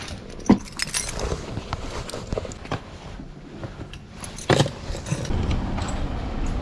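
Keys jangling and clicking amid light handling knocks and rattles, with two sharper knocks, one about half a second in and one at about four and a half seconds.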